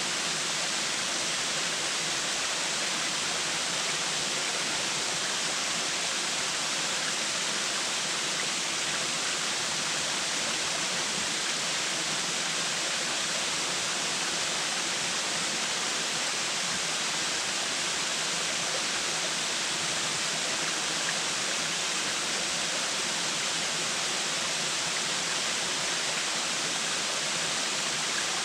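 Waterfall rushing: a steady, even hiss of falling water, unchanging throughout.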